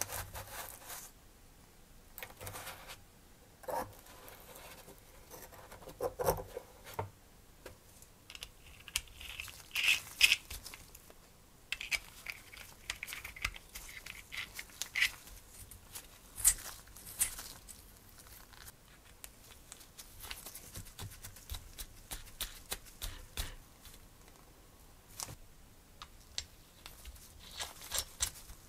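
Gloved hands handling small machined aluminium model-engine parts: irregular rustling of the rubber gloves with scraping and light clicks of metal parts, busiest about a third of the way in.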